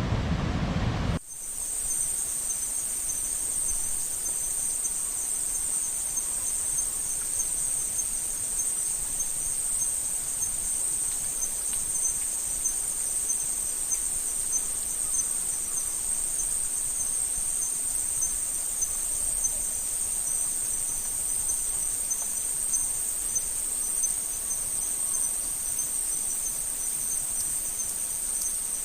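A loud rushing noise cuts off about a second in. After it comes a steady, high-pitched, unbroken chorus of insects.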